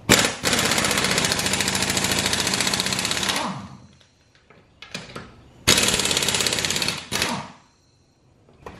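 Pneumatic impact wrench hammering lug nuts loose on a car wheel: one run of about three and a half seconds that winds down as it stops, a few light clicks, then a second run of about a second and a half with a short blip after it.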